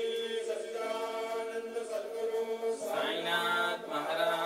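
Devotional chanting: voices singing long held notes, with a louder new phrase and a lower voice coming in about three seconds in.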